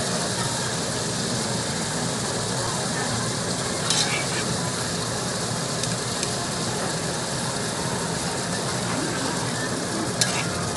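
Meat sizzling steadily in a hot stone pot, with a brief clink about four seconds in and another near the end.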